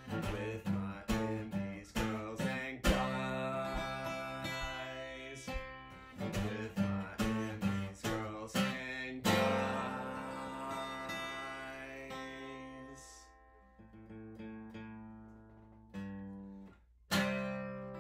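Acoustic guitar strummed in a steady rhythm. About nine seconds in, a full chord is struck and left to ring out and fade, followed by a few faint single notes and two more strums near the end.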